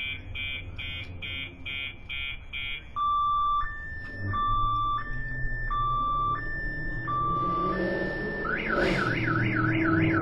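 Car alarm siren cycling through its tone patterns: a string of rapid beeps, then a slow two-tone high-low alternation from about three seconds in, then a fast warbling wail near the end. A low steady hum runs underneath.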